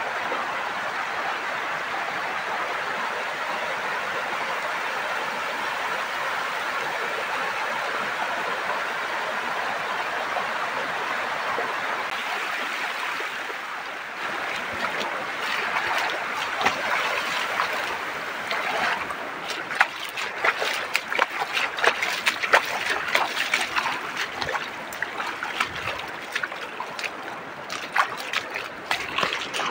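Muddy rainwater runoff rushing in a steady stream across a crop field after heavy rain. About halfway through the rush turns uneven, with many short irregular clicks and rustles over it.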